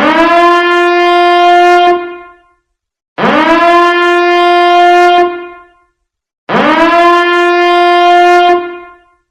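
Biohazard alarm sounding: a loud horn-like tone that swoops quickly up in pitch, holds steady for about two seconds and then fades, repeating three times about every three seconds.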